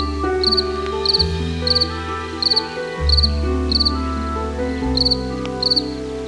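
Crickets chirping steadily, about one and a half chirps a second, each chirp a quick run of pulses, over background music of held low notes and chords that change every second or two.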